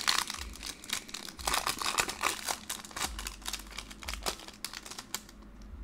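Foil Pokémon booster pack wrapper torn open and crinkled by hand: a dense crackle for about the first three seconds, then softer, sparser crinkles as the cards are slid out of the pack.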